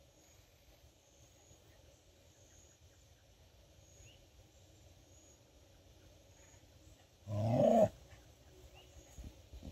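Scottish terrier barking once, a short loud bark about seven seconds in.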